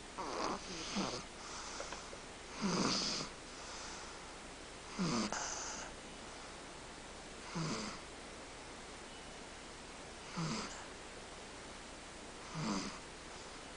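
A 10-month-old baby snoring, a snore about every two and a half seconds, each one falling in pitch, with a few quicker ones close together near the start.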